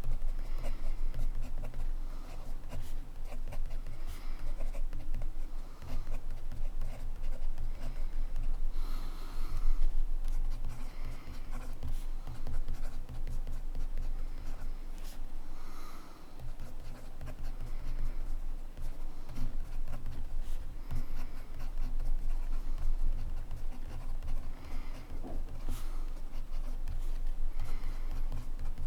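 Montblanc Meisterstück 144 fountain pen nib scratching across paper in steady handwriting, short strokes with brief lifts between them. A steady low hum runs underneath.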